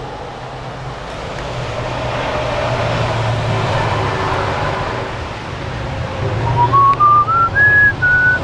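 Steady traffic and tyre noise on a wet street, swelling in the middle as a vehicle goes by. About six and a half seconds in, a person starts whistling a tune in short notes that climb in steps.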